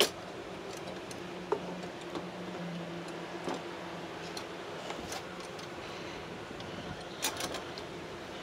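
Plastic headlight housing clicking and knocking against the car's front end as it is being fitted into place, a handful of sharp taps a second or two apart over a steady low hum.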